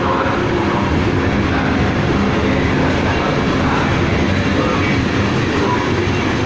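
Trenitalia Frecciabianca electric trainset running along the platform track close by: a loud, steady rumble of wheels on rail with a steady hum underneath.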